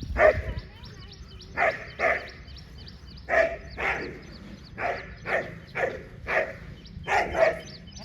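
Dog barking repeatedly: about a dozen short barks, many in quick pairs, roughly one every half to one second.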